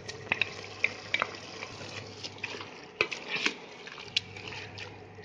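Wooden spatula stirring and knocking against a pot of mutton and spinach frying in hot oil, irregular clicks and scrapes over a low sizzle.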